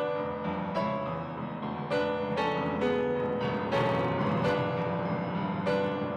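Slow piano music: single notes and chords struck about once a second and left to ring.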